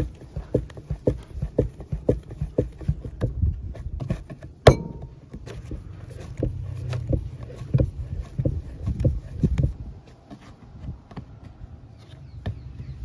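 Hands kneading and pressing balls of wheat dough on a wooden board: a steady run of soft thuds about twice a second, with one sharp, louder knock about halfway through. The thuds die down in the last few seconds.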